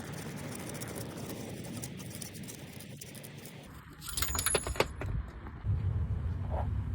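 Metal tools and hardware clinking: a quick run of sharp clinks with a bright ringing tone about four seconds in, followed by low handling and rumbling noise.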